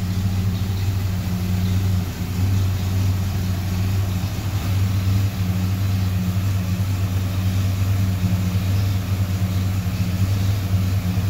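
1956 Chevrolet 3100 pickup's 265 V8 idling steadily with a low, even note.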